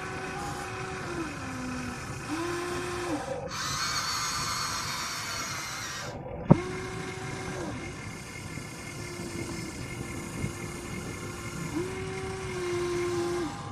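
Huina RC excavator's small motors whining in repeated short runs as the boom, arm and bucket move, each whine starting, holding steady for about a second and stopping, over a background of gear and track rattle. A single sharp click comes about six and a half seconds in.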